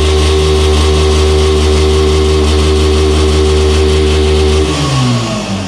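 Motorcycle engine held at steady raised revs, then the revs falling away near the end.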